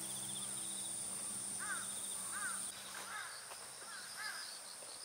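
Crows cawing repeatedly, about one harsh caw a second, over a steady high insect drone.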